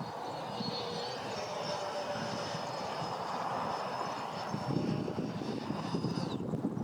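Twin 80 mm electric ducted fans of a Freewing MiG-29 model jet whining steadily in flight, the pitch rising slightly about a second in and dropping near the end. Gusts of wind rumble on the microphone underneath.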